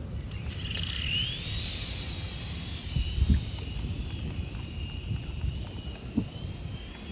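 Small electric motors and propellers of a remote-control toy aircraft, making a high whine that rises about a second in and then wavers in pitch as it flies. Low gusts of wind rumble on the microphone near the middle.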